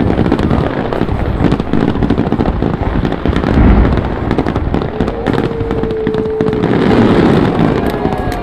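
Fireworks going off in a dense run of crackles and pops, with a heavy boom about three and a half seconds in. A steady held tone sounds for about two seconds over the crackling past the middle.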